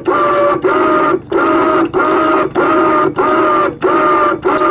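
SEA PRO electric anchor winch hauling in the anchor rope, pulling the boat toward its anchor. The motor whines in a steady, even rhythm of about three pulses every two seconds, with a short dip between pulses.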